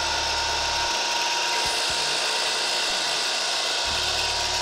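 DeWalt DWS779 sliding compound miter saw running at full speed, its blade spinning freely above the plywood. The motor gives a steady, even whine.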